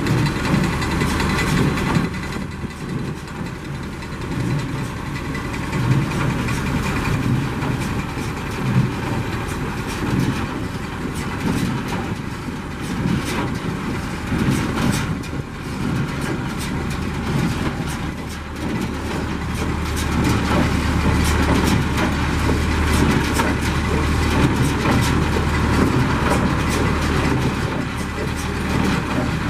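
A tractor engine running steadily while it drives a Massey Ferguson 20 hay baler, with the baler's mechanism clattering and knocking over the engine hum. The engine grows a little louder about two-thirds of the way through.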